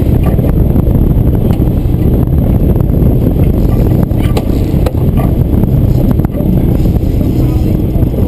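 Loud, steady rumble of wind on the microphone over a fishing boat's running outboard motor, with a few sharp clicks around the middle.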